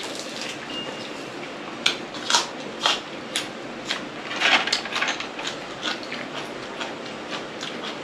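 Eating sounds: chewing and handling of blanched squid and blood cockles on a metal tray, heard as a run of short crisp clicks and smacks about two a second from about two seconds in, with one longer, breathier one about halfway through.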